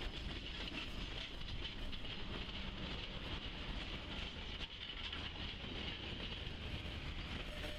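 Southern Railway 4501, a 1911 Baldwin 2-8-2 steam locomotive, moving along the line with its passenger train. The wheels and cars make a steady rumble with some rail clatter.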